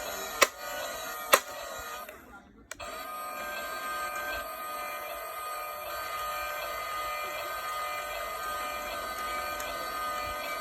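Small electric motors and plastic gears of a toy RC excavator whining as it is driven by remote control. Two sharp clicks come about half a second and a second and a half in, the whine stops briefly a little over two seconds in, then runs steadily again.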